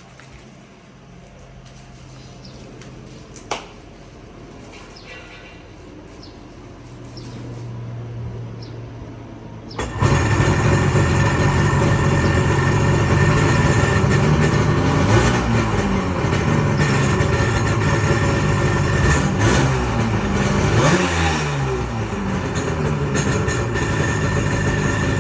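1990 Sea-Doo SPI jet ski's 580 cc two-stroke twin engine: a low hum for about ten seconds, then the engine fires and runs loud, revved up and down several times.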